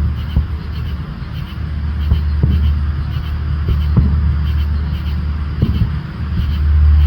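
Fireworks bursting in the sky as a few scattered dull thuds, five or so in seven seconds, over a steady low rumble.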